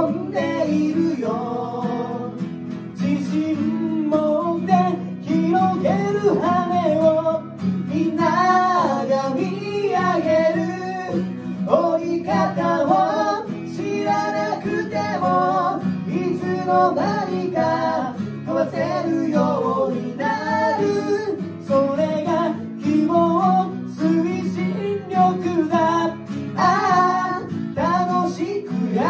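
Two male voices singing a Japanese pop song together, accompanied by strummed acoustic guitars.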